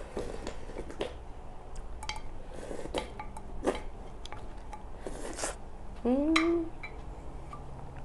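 Wooden spoon scraping and clicking against a ceramic bowl, with close-up eating mouth sounds as the bowl is tipped to the mouth. About six seconds in comes a short, louder voiced sound that rises in pitch.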